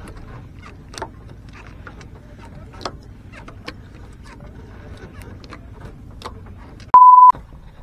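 Faint low rumble with scattered small clicks and knocks. Near the end comes a loud, steady electronic beep of one pitch, lasting about a third of a second, with all other sound cut out under it: a censor-style bleep dubbed in during editing.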